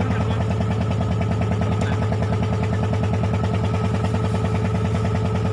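Fishing boat's inboard diesel engine running steadily with a fast, even chugging.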